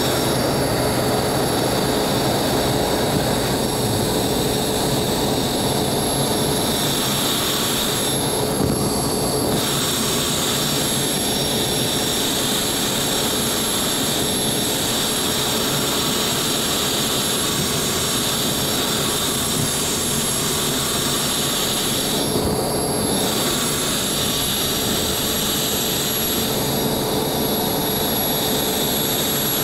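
The small turbojet engine of a BD-5J micro jet runs steadily, heard from on board as the aircraft moves along the ground. It makes a constant rushing sound with a thin high whine that holds at one pitch.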